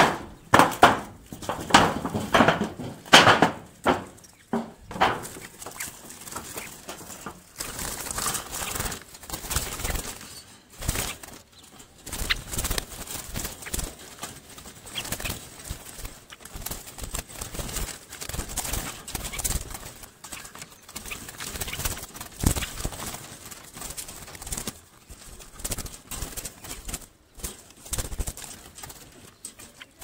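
Domestic pigeons cooing in the first few seconds. Then a long run of rustling, scraping and light rattling as a hand works inside a wire bird trap cage, with trapped birds fluttering their wings.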